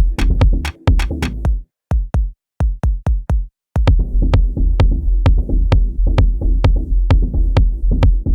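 Electronic drum-machine beat played live on Native Instruments Maschine 2, with a heavy bass line under regular drum hits. Less than two seconds in, the bass and most parts drop out, leaving a few sparse hits with silences between them; after about two seconds the full beat and bass come back in.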